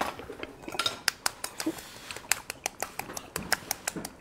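Close-miked eating and handling sounds: a quick run of sharp little clicks and crackles from chewing and from fingers working a century egg in its shell.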